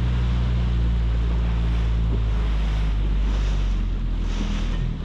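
Small outboard motor running at a steady low speed, with water noise and wind buffeting the microphone. The engine note eases off in the second half.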